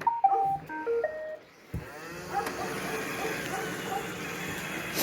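Roomba 694 robot vacuum playing its short electronic start-up tune of beeping notes stepping up and down in pitch. A knock follows, then the vacuum's motor and brushes start and run steadily.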